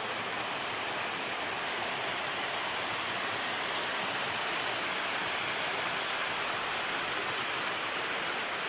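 Steady rushing of a waterfall of about 10 to 15 metres, with the mountain stream splashing over rocks at its foot.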